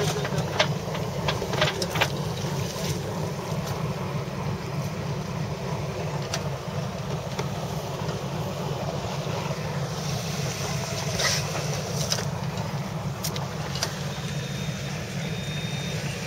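Steady rushing noise of wind and water aboard a sailing yacht on open water, with a few scattered sharp clicks and knocks.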